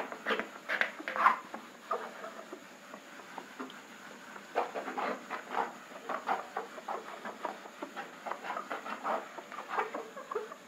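Whiteboard duster rubbed back and forth across a whiteboard, wiping off marker writing: a run of short, irregular scrubbing strokes.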